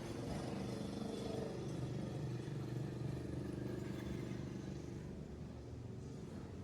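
An engine running steadily with a low hum, easing off slightly in the second half.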